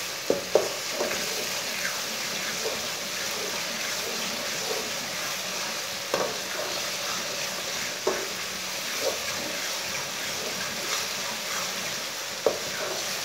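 Chopped tomatoes, onions and green chillies sizzling steadily in hot oil in a metal karahi while being stirred with a slotted metal spatula, which knocks sharply against the pan several times.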